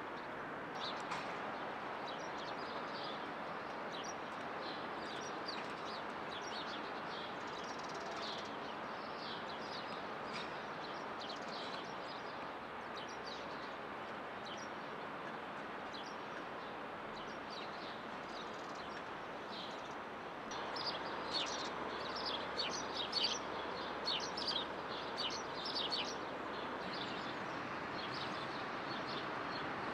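Small birds chirping over a steady hum of distant city traffic, the chirps coming thicker about two-thirds of the way through.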